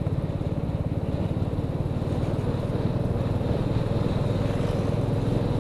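Motorcycle engine running steadily under way, with an even, rapid pulsing beat.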